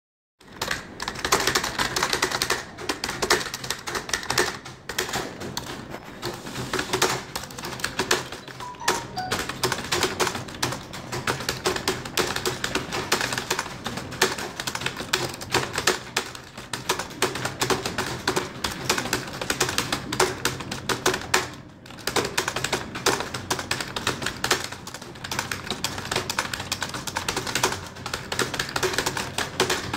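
Fast, continuous typing on a computer keyboard: a dense run of key clicks, broken by two short pauses.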